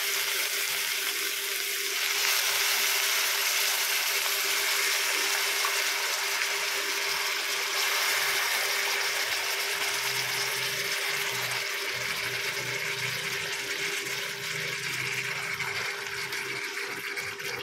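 Yogurt-marinated chicken pieces sizzling in hot butter and ghee in a kadai, a loud, steady hiss that eases slightly toward the end. A faint steady hum runs underneath.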